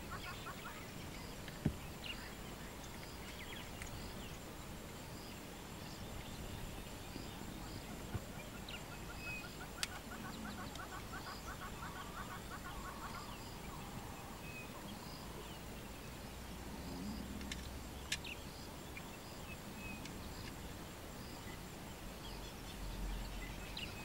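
Southern ground hornbills giving soft, low hooting calls, once about halfway through and again about two-thirds of the way in. Behind them runs a repeating trill with faint regular high ticks, and there are four sharp clicks.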